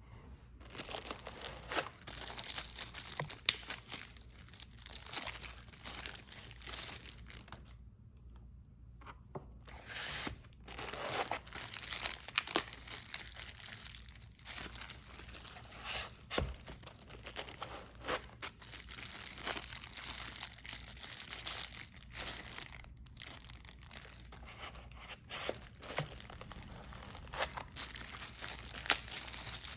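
Irregular crinkling and rustling handling noise, broken by scattered sharp clicks and knocks, with a brief lull about eight seconds in.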